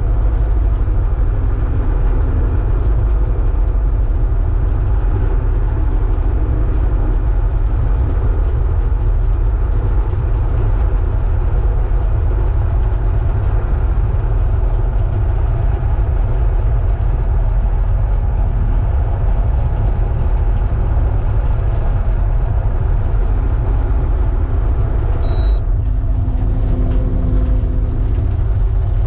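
Kubota excavator's diesel engine running steadily under load, a constant low rumble, with a shift in its tone about 25 seconds in.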